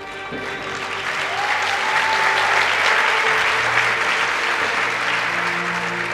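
Theatre audience applauding, swelling to a peak a couple of seconds in and then easing off, with the routine's backing music still playing underneath.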